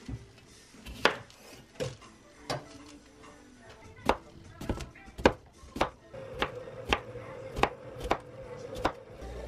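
Chef's knife slicing a cucumber into rounds on a bamboo cutting board: a sharp knock of the blade on the board with each cut, about a dozen cuts at an unhurried, slightly uneven pace.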